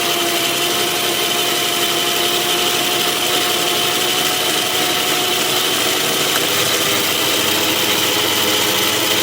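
1944 Logan lathe, driven by a three-phase motor on a variable frequency drive, running steadily while turning a 4140 steel backing plate, with a steady whine and a high tone over the cutting noise. About six and a half seconds in, the tones shift and a low hum comes in as the spindle slows under the cut, sagging to around 340–350 RPM in the tough 4140.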